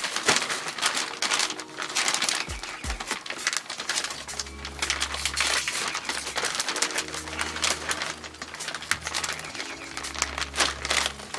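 Plastic bag of potting mix crinkling and crackling as it is pulled and worked open by hand, with background music underneath.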